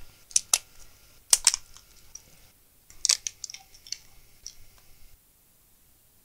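Sharp clicks and light taps of small tools and parts being handled on a workbench, in irregular clusters. The low background hum cuts off abruptly about five seconds in.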